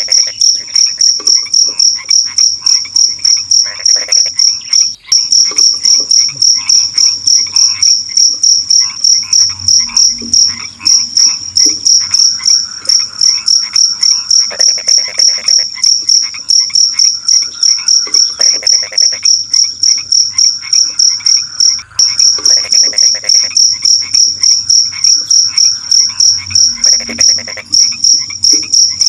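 Crickets chirping in a loud, high-pitched, evenly pulsing trill, several pulses a second, without a break. Shorter, lower calls of other night animals come and go beneath it in bouts.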